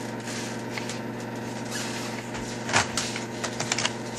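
Carded Hot Wheels cars in plastic blister packs being handled, with a few sharp clicks and taps in the second half, over a steady hum.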